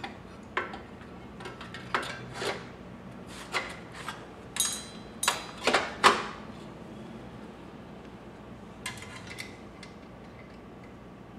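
Knocks, clicks and rubbing of the battery compartment being worked by hand into the frame of a 1972 Honda CB350. They come irregularly, loudest around five to six seconds in, with a few softer clicks about nine seconds in.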